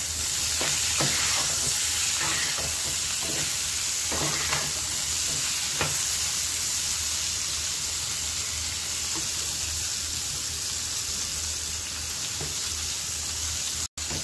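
Pointed gourd (parwal) and potato pieces sizzling steadily in hot oil in a frying pan as a spatula stirs and turns them, with a few short scrapes and taps of the spatula in the first half. The sound cuts out for an instant near the end.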